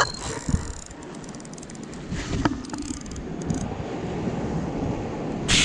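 Wind noise on the microphone, with the handling of a small baitcasting reel being wound in on a bite, and a short, sharp noise near the end.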